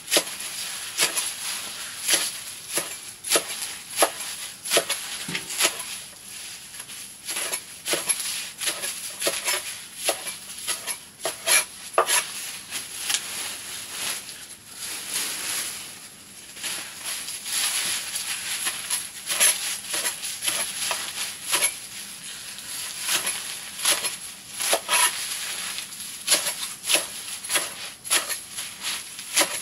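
Pig fodder greens being chopped by hand: sharp, irregular knocks of a blade, about one or two a second, over a faint steady high whine.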